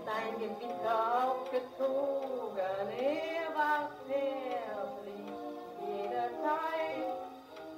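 A 1931 shellac 78 rpm record playing on a portable wind-up HMV gramophone: a melody that slides up and down in pitch over a steady dance-band accompaniment. It turns quieter near the end.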